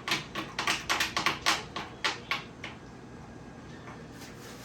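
A quick run of sharp clicks and taps from handling the parts of a toy electric bike, about a dozen in the first two and a half seconds, then a few faint ones.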